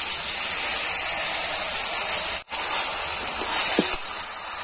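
Marinated chicken sizzling loudly in a hot karahi with fried onions and tomato and no oil, as it is stirred in with a steel spatula. A steady, high hiss, with a momentary drop-out about halfway through.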